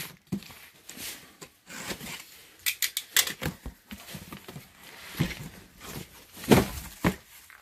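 A taped cardboard box being opened by hand: flaps pulled back and rubbing, with scattered sharp cardboard clicks and rustles. The loudest is a dull thump of cardboard about six and a half seconds in.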